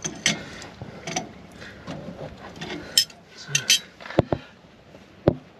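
Metal clinks and taps of a wrench on the castle nut of a caravan's wheel hub, then a few sharp knocks about four and five seconds in as the brake drum is rocked by hand, the wheel bearing still having a little play.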